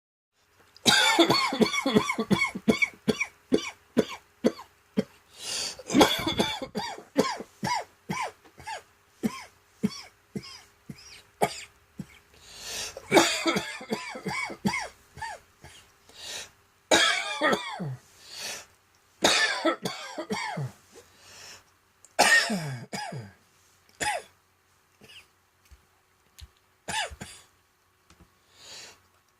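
A person coughing in repeated fits: runs of rapid coughs with short pauses between, some of them strained and hoarse. It is a tickly-throat cough, which the cougher expects to turn into a cold and bronchitis.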